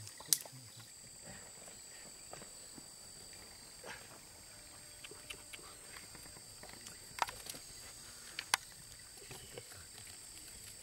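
Steady high insect trilling, with scattered sharp knocks and taps from sticks being worked in loose sand. The loudest knocks come about a third of a second in, then a pair about seven seconds in and another a second and a half later.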